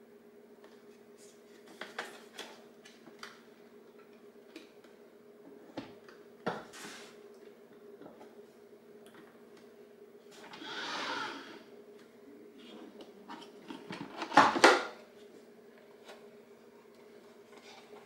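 Plastic handling noise from a robot vacuum cleaner. There are scattered clicks and taps as it is turned over, then a brief scraping rustle about halfway through as the top cover is lifted. A few seconds later comes a loud cluster of plastic clacks as the dust bin is unlatched and pulled out. A low steady hum runs underneath.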